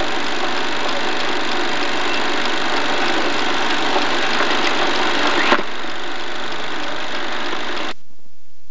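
Film projector running, a steady mechanical whir with faint regular ticking from the film transport, and a sharp click about five and a half seconds in. The noise cuts off abruptly near the end as the recording ends, leaving only faint hiss.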